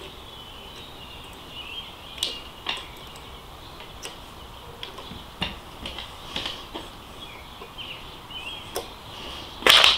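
Light metal clicks and clinks of disc brake pads and caliper parts being handled and fitted by hand, several separate ticks and a louder clatter near the end. Birds chirp faintly in the background.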